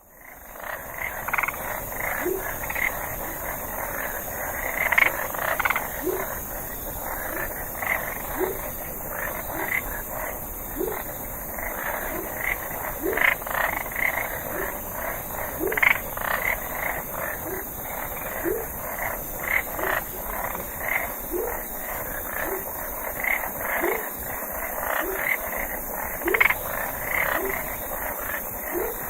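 A chorus of frogs croaking at night: a short, low rising call repeats every second or two over a dense, steady mass of higher calls. The sound fades in at the start.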